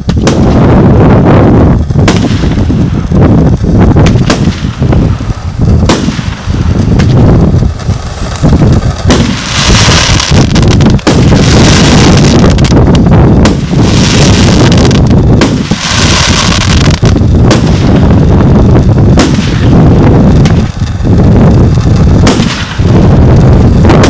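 Multi-shot fireworks cake of 25–50 mm calibre tubes firing in rapid succession, a dense, loud barrage of launch thumps and aerial bursts. Several stretches of hissing crackle come between about nine and seventeen seconds in.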